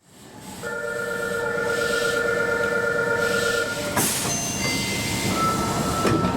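Fukuoka City Subway 1000N series door chime: a steady two-tone sound lasting about three seconds over the train's background noise. About four seconds in comes a sharp clack, followed by a few short high tones.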